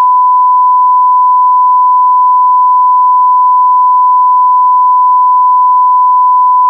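A single loud electronic beep at one steady pitch, held unbroken like a long censor bleep or test tone.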